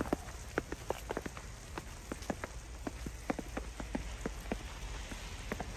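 Boots crunching through fresh snow as two people walk, a quick, uneven run of crisp crunches, about three or four a second.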